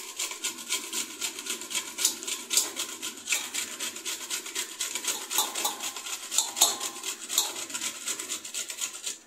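Dried coconut being grated on a stainless steel box grater: a rapid, even run of rasping strokes that stops abruptly near the end.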